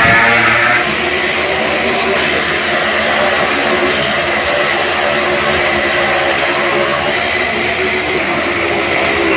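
Motorcycle engines running steadily as the bikes circle the vertical wooden wall of a Well of Death drum, a continuous loud engine drone.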